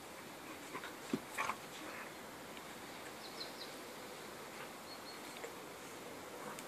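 Appenzeller Sennenhund and Entlebucher puppy play-fighting: faint scuffling and mouthing sounds, with a short dog vocalisation about a second in, over a steady hiss.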